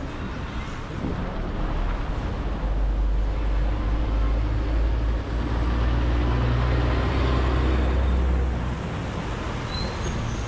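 Road traffic on a city street, with a motor vehicle engine's low steady drone that sets in a couple of seconds in and drops away shortly before the end.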